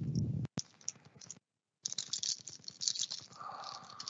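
A foil trading-card pack crinkling and cards being shuffled in the fingers: a run of small crackles and clicks.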